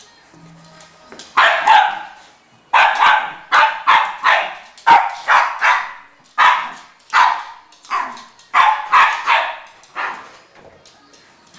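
Miniature schnauzer barking repeatedly, a string of about fifteen short, sharp barks at roughly two a second. They start about a second in and stop about ten seconds in.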